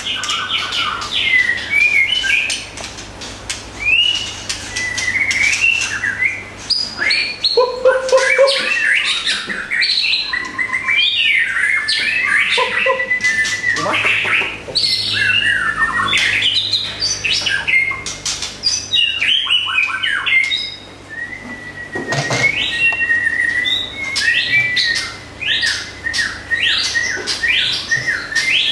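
White-rumped shamas singing from hanging cages: a continuous, varied song of whistled phrases mixed with harsh chattering and rapid clicking notes.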